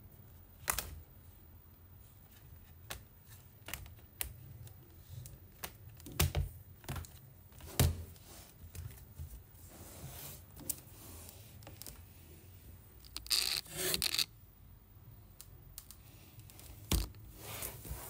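Hands handling a clear plastic hard-shell laptop case: scattered sharp clicks and taps of the plastic, with stretches of rubbing and scraping as fingers wipe across the shell, the longest a little past the middle.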